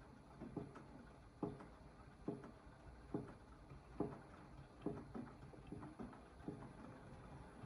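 AEG 8000 washing machine knocking as the drum turns slowly: a sharp knock repeating evenly a little more than once a second over a faint low rumble. The knock persists with the detergent drawer removed, and its cause is unknown.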